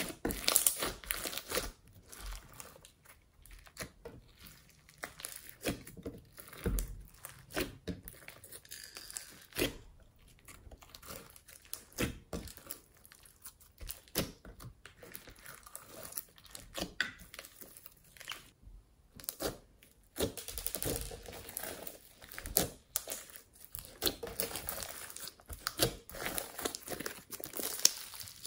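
Hands squishing, kneading and stretching glossy slime studded with foam beads, giving sticky, wet crackles, pops and tearing sounds at an irregular pace. Loudest just after the start, with a short lull past the middle and denser crackling after it.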